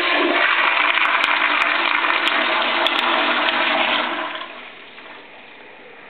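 Zurn dual-flush commercial toilet flushing on its full, higher-flow setting, handle pushed down: a loud rush of water that dies away about four seconds in to a quieter hiss.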